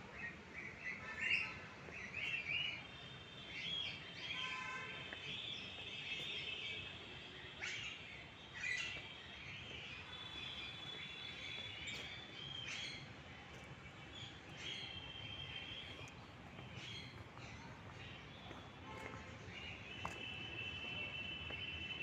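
Small caged birds in a zoo aviary chirping and twittering, with many short, high calls, some trilled, throughout, over a steady low hiss.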